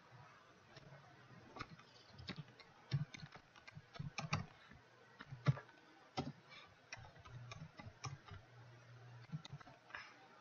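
Computer keyboard being typed on: irregular, sparse keystroke clicks, now and then in short runs, with a few sharper ones.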